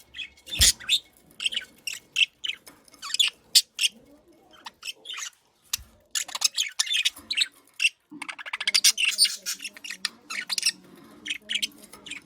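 Bird calls: many short, high calls in quick succession, with a quieter stretch in the middle.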